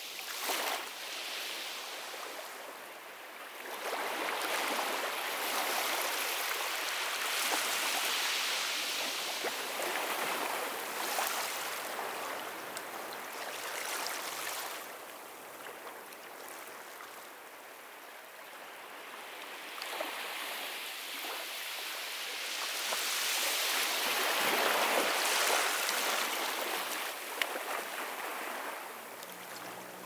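Ocean surf breaking and washing up a beach, a steady rush of water that swells and eases in long surges. It is loudest about a quarter of the way in and again about three-quarters in, and softest just past the middle.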